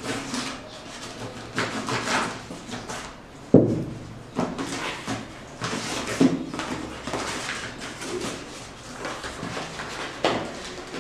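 Packing tape on a cardboard box being slit with a knife and peeled off, then the cardboard flaps rustling and scraping as they are pulled open, with one sharp knock about three and a half seconds in.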